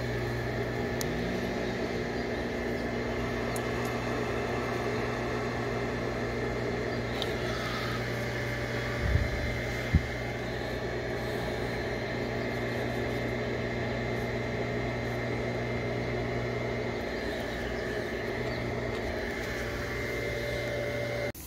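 Water rushing through a brass ball valve on an irrigation supply line as the valve is opened. It makes a steady hum with a low tone, and the pitch rises briefly about a second in. Two sharp knocks come about halfway through.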